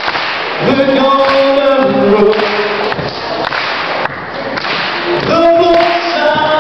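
A young man singing a cappella into a microphone, unaccompanied, in long held notes broken into short phrases.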